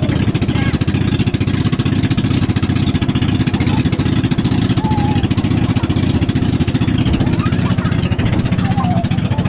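Small wooden motorboat's engine running steadily at full speed, a fast, even chugging pulse, over the hiss and rush of the hull cutting through rough, choppy water.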